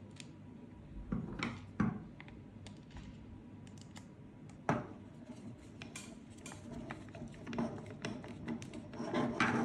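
A screwdriver setting and turning small screws into a crossbow's frame, with scattered light clicks and taps of metal on the frame and of the parts being handled, a few sharper clicks among them.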